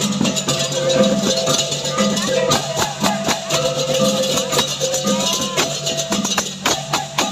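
Balinese processional gamelan (baleganjur) playing: fast, dense clashing of cymbals over repeating held gong and metallophone tones.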